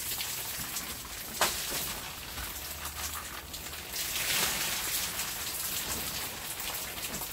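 Rainwater pooled on a plastic-film greenhouse roof splashing and pouring off as the sagging film is pushed up from inside with a wooden pole. There is a sharp knock about a second and a half in and a louder rush of water around four seconds in.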